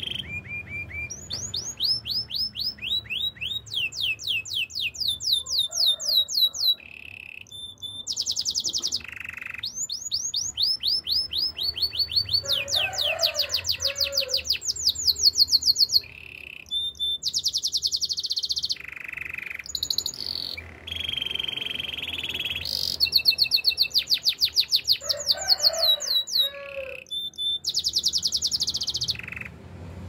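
Domestic canary singing a long song of trills: fast runs of rapidly repeated high notes, each run changing speed and pitch, broken by short held notes and brief pauses.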